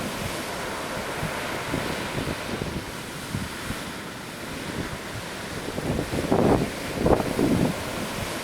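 Ocean surf washing steadily, with wind buffeting the microphone in a few low gusts about six to seven and a half seconds in.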